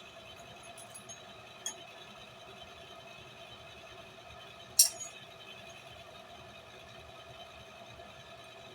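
A single sharp metallic clink of a steel tool against the anvil just under five seconds in, with a smaller clink right after and a few faint ticks near the start, over a steady hum.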